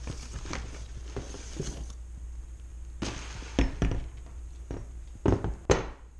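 Cardboard box and packing rustling and scraping as a heavy winch is lifted out. This is followed by several sharp thunks, the loudest two near the end, as the winch knocks against the box and is set down on a stone countertop.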